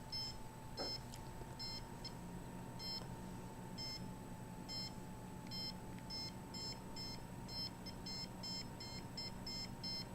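Handheld RF (microwave) meter beeping: short, high-pitched beeps at irregular intervals, coming faster and closer together in the second half, over a faint steady tone. The beeps follow the microwave signal the meter is picking up.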